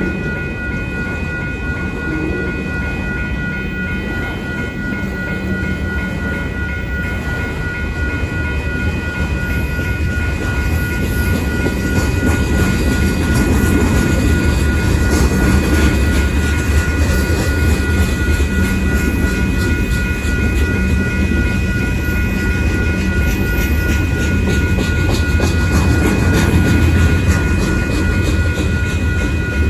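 Freight train cars rolling through a grade crossing, their wheels clacking steadily over the rail joints, with a low rumble that grows louder about ten seconds in. The crossing's warning bell keeps ringing at a steady high pitch throughout.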